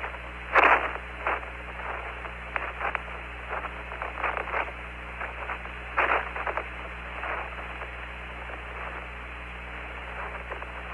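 Hiss and static of the Apollo 15 lunar-surface air-to-ground radio link between transmissions, with a low steady hum beneath. Scattered crackles run through it, and two louder bursts of noise come about half a second in and about six seconds in.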